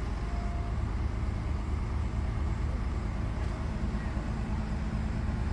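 Volvo truck diesel engine running steadily with a low, even throb.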